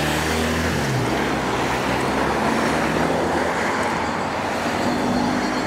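Race convoy vehicles passing close on the road. An engine note drops in pitch as one goes by about a second in, then steady engine and tyre noise as a team car with bicycles on its roof rack approaches.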